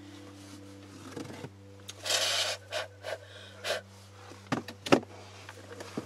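Rustling of a waterproof jacket and handling of camera gear: several short brushing scrapes from about two seconds in, then two sharp knocks half a second apart.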